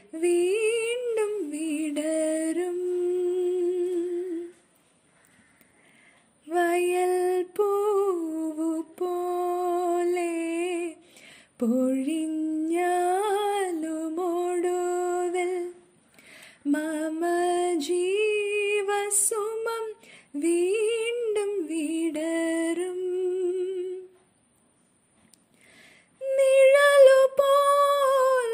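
A woman singing a Malayalam devotional song solo and unaccompanied, in phrases of long held notes with a wavering vibrato. She pauses twice for about two seconds, near the start and near the end.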